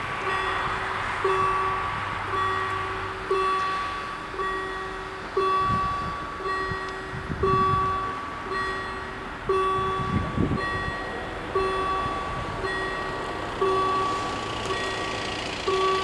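Level-crossing warning bells ringing, warning that a train is approaching. Two bell tones, one low and one higher, each strike about once a second out of step with each other, every strike starting sharply and fading briefly.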